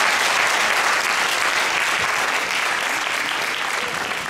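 Audience applauding, a dense, steady clapping that slowly dies down.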